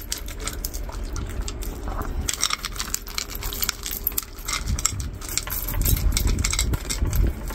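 Dogs eating from their bowls, kibble mixed with egg and cabbage: a quick, uneven run of crunching and clicking.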